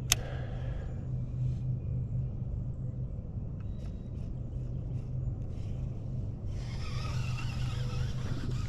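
Steady low hum and rumble of a bass boat's electric trolling motor, with a sharp click right at the start. A higher hiss joins a little before the end.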